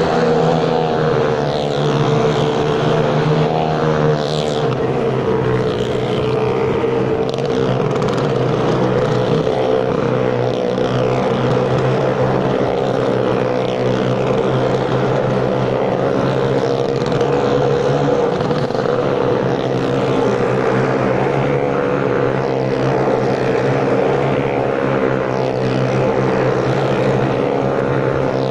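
Motorcycle engines running steadily as riders circle the vertical wooden wall of a well-of-death drum, a continuous loud drone with small rises and falls in revs.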